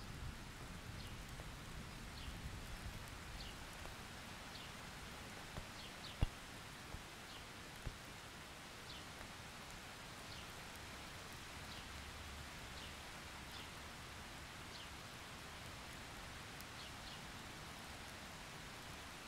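Steady summer thunderstorm rain falling on a puddle, an even hiss, as the last of a thunder rumble dies away at the start. A single sharp tap stands out about six seconds in, and faint short high chirps repeat every second or so.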